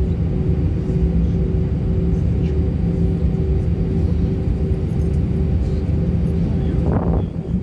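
Airbus A321 jet engines heard from inside the cabin: a steady low rumble with a constant hum. A brief higher sound cuts in about seven seconds in.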